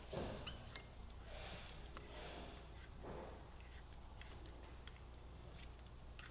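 Faint workshop handling sounds: a few light clicks and soft rustles of hands and a hand tool working the rearset's brake-pedal linkage and bolt, over a low steady room hum.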